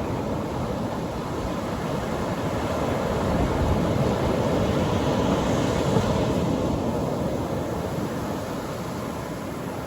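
Atlantic Ocean surf breaking on a sandy beach: a continuous wash of waves that swells about a third of the way in as a wave breaks, then eases off.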